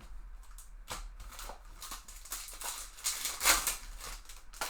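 Trading cards and foil packs being handled: a run of short rustles and scrapes, the loudest about three and a half seconds in.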